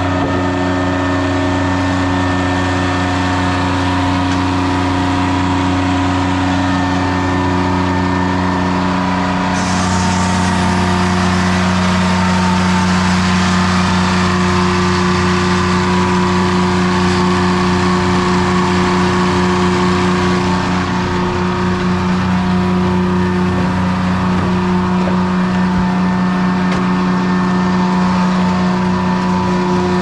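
1953 Detroit Diesel two-stroke engine running steadily at constant speed, driving a 1940s Corley circular sawmill through its belt and pulley, the saw turning over without cutting. The sound gets a little louder and sharper about ten seconds in.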